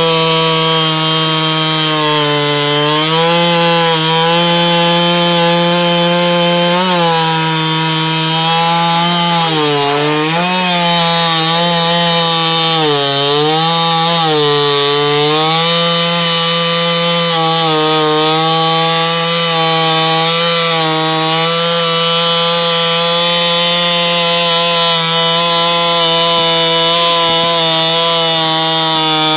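Jonsered 49SP two-stroke chainsaw with an 18-inch bar running flat out while cutting tamarack. Its engine note sags and recovers several times around the middle as the chain bites under load, then holds steady.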